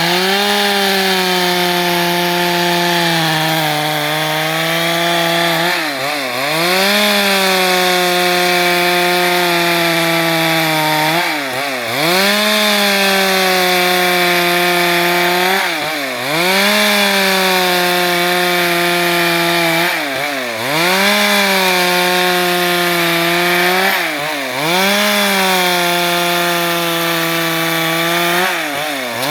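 Stihl MS 382 two-stroke chainsaw running at high revs while sawing wood into planks; the engine pitch drops sharply and picks straight back up about every four to five seconds, six times.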